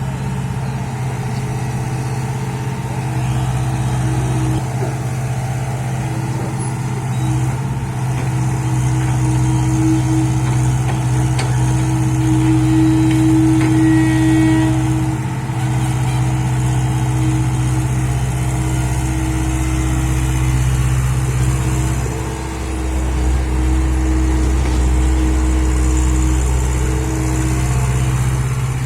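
Bulldozer's diesel engine running steadily with a low, even drone. It swells a little about halfway through and dips briefly near the three-quarter mark.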